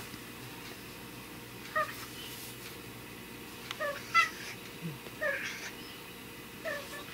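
Tabby-and-white domestic cat meowing about five times in short calls, the loudest a little past the middle. The cat is begging for food, asking for sashimi instead of the dry food in its dish.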